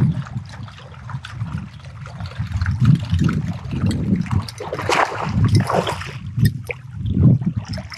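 Water lapping and slapping against the hull of a fishing boat, in irregular low slaps, with a louder rushing splash about five seconds in.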